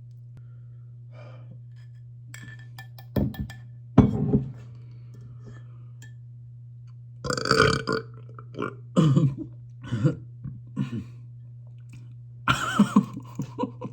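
A man burps several times after eating most of a jar of dill pickles, the loudest about four seconds in, with short mouth and chewing noises between the burps. A steady low hum lies underneath.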